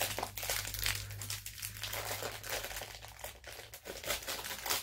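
A Skittles bag's plastic wrapper crinkling as it is pulled and torn open by hand, in a run of irregular crackles.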